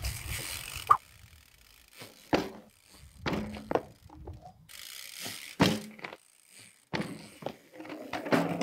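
Trials bike knocking and thudding on a paved path several times, as it is let go during trick attempts and drops or bounces on its wheels, with a short metallic rattle after some of the knocks.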